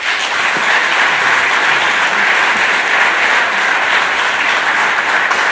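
A large audience applauding, a dense, steady clapping that holds at an even level throughout.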